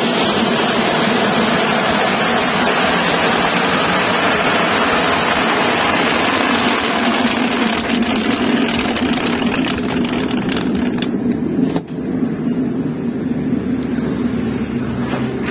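Motorized drum walnut-peeling machine running: a steady mechanical hum under a dense rushing rattle. The rattle thins out abruptly after a brief dip about twelve seconds in, and a lower steady hum comes in near the end.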